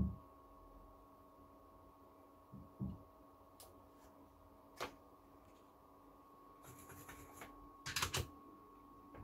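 A few light clicks and taps of small tools handled on a phone's circuit board, most of them close together near the end, over a faint steady electrical hum.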